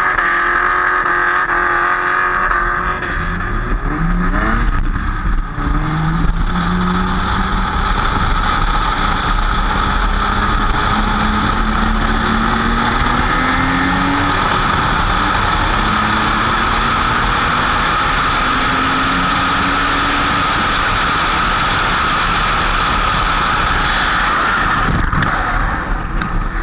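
Drift car's engine revving hard and climbing through the revs as it accelerates away, heard up close over the open engine bay. Then a long steady tyre screech while the car slides sideways through the corners, its rear tyres spinning and smoking.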